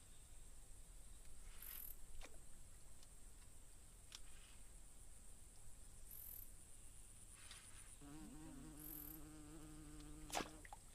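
Insects droning with a steady high-pitched tone, with a few short higher chirps over it. From about eight seconds in a low steady hum joins, cut off by a sharp click near the end.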